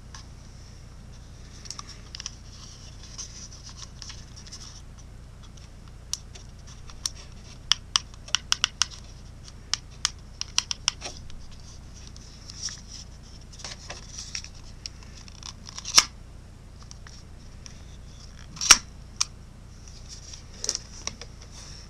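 Packaging and a small camcorder being handled: short rustles and scattered sharp clicks and taps, the two loudest clicks about two-thirds of the way through and near the end, over a faint steady hiss.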